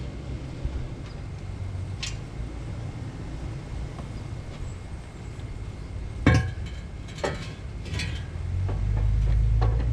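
Metal clinks and knocks from exhaust headers being handled, a handful of sharp hits with the loudest about six seconds in, over a low rumble that swells near the end.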